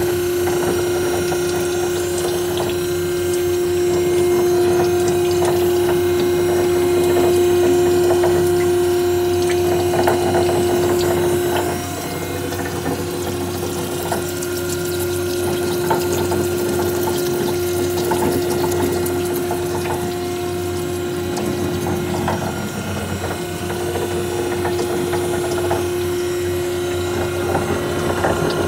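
Machine running with its gear and toothed-belt drive turning: a steady hum with one strong held tone and a wash of wet, splashing noise. The level drops slightly about twelve seconds in.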